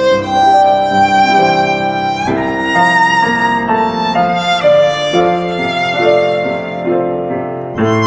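Instrumental background music: a melody of held notes that change every second or so over a sustained accompaniment.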